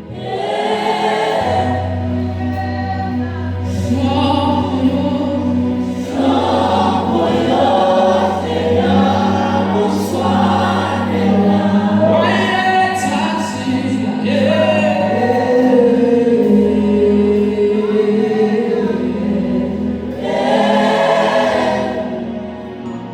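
A gospel choir singing live in harmony over steady low sustained notes.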